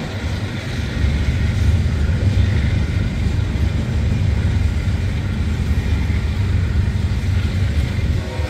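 Union Pacific freight train's boxcars rolling past, a steady low rumble of steel wheels on rail.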